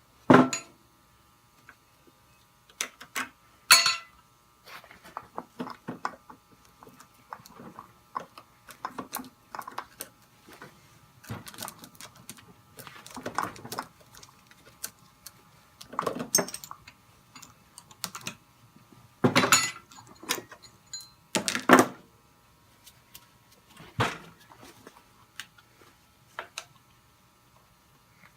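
Hands working on a Homelite chainsaw's parts with the clutch cover off, which is caked with debris: irregular clicks, knocks and short scrapes of metal and plastic. The louder knocks come near the start and about two-thirds of the way through.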